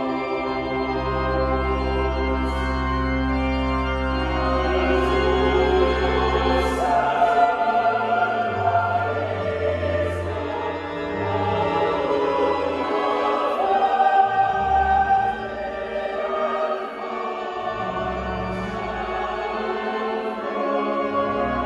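Mixed choir singing a choral piece in parts, with organ accompaniment: long held deep organ notes under the voices for the first several seconds, then a moving bass line. The singers' 's' sounds hiss through briefly several times.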